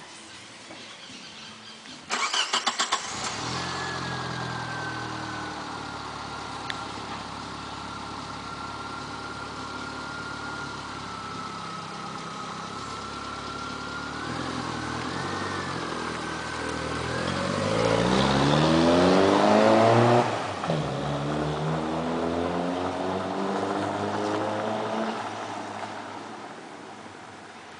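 A Tracker 4x4's engine cranks briefly and catches about two seconds in, then idles with a thin steady whine above it. It is revved hard once and dropped abruptly back to idle, revved again more gently, and then fades.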